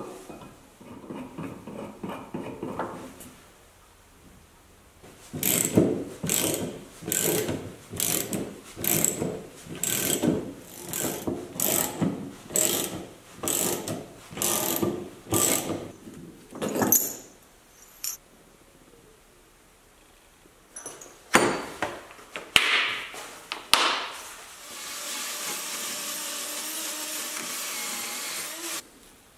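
Ratchet wrench working the spindle of a bearing puller in a long run of even strokes, about one and a half a second, drawing the wheel bearing's inner ring off a hub shaft. Near the end a cordless drill spins a wire brush against the steel hub flange, a steady hiss that stops abruptly.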